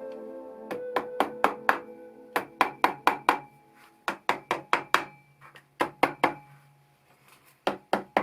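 Sharp knocks of a hammer on metal engine parts, struck in quick runs of three to six blows with short pauses between, each ringing briefly. Background music plays underneath.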